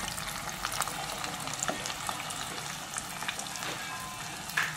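Batter-coated chicken pieces deep-frying in hot oil: a steady sizzle with many small crackling pops, and one sharper click near the end.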